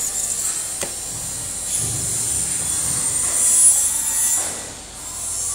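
Clear protective plastic film being cut with a snap-off utility knife and peeled off a mirror-glass panel: a sustained high rasping hiss, with a sharp click about a second in.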